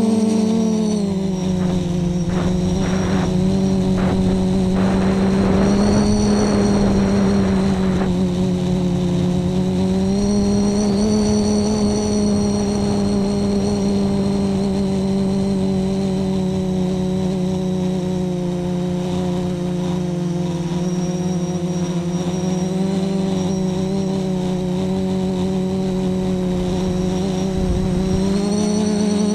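Flip FPV quadcopter's brushless motors and propellers whining steadily, heard close up from a camera mounted on the frame. The pitch lifts slightly a few times as the throttle changes.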